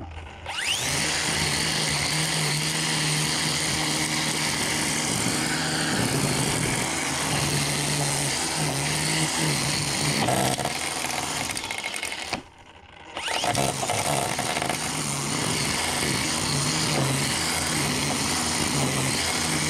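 DEWALT DCST922B 20V cordless string trimmer spinning up and running, its line cutting through deep grass. It cuts out for under a second about twelve seconds in, then spins up again with a rising whine.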